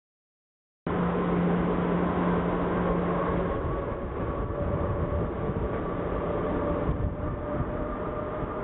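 Airbus A330 MRTT's Rolls-Royce Trent 700 jet engines running at takeoff power, heard from off to the side of the runway as a steady roar with a faint whine, starting about a second in.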